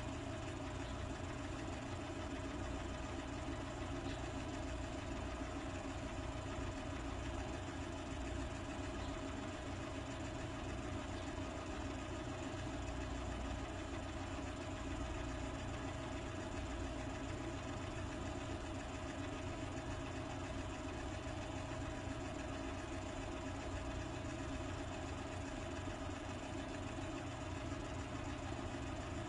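A steady mechanical hum with several constant tones, unchanging in pitch and level.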